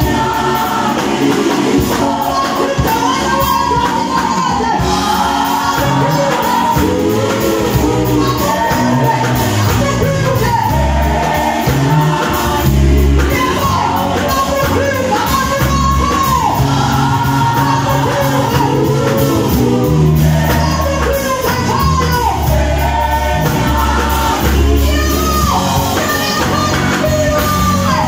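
A vocal group singing a song live with a backing band, the voices carrying a melody over a bass line that steps between low notes.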